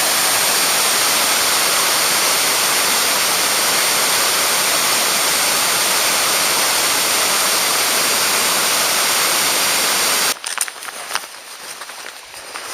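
Loud, steady rush of mountain-stream water pouring close by, which cuts off abruptly about ten seconds in; after it, quieter scattered clicks and rustles.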